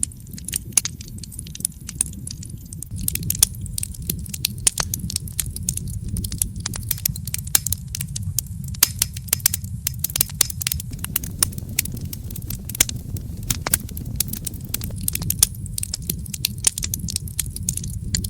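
Wood fire burning in a fireplace: constant irregular crackling and popping, several sharp pops a second, over a steady low rumble.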